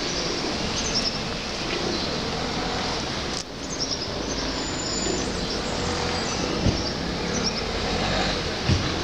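Wind blowing across the microphone: a steady rushing noise with a shifting low rumble. It drops briefly about three and a half seconds in.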